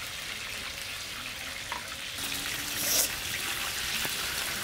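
Chunks of catla fish sizzling in hot oil in a large iron karai, a steady hiss with small clicks of the metal spatula, swelling briefly about three seconds in.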